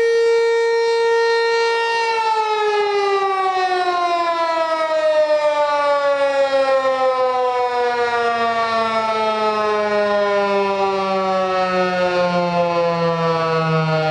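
Federal Signal 508 outdoor warning siren holding a steady tone, then about two seconds in starting to wind down, its pitch falling slowly and evenly as the rotor slows.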